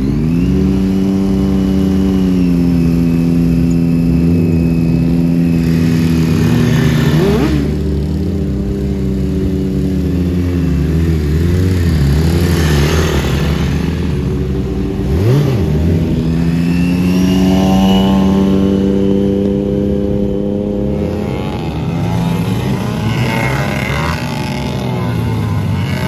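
Motorcycle engine held at steady revs through long wheelies. The note sags and climbs back up a couple of times as the throttle is eased and reopened.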